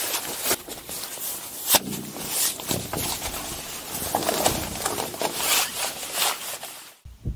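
Rustling, scraping and short knocks of camping gear being handled during pup-tent setup, irregular throughout, cutting off abruptly about seven seconds in.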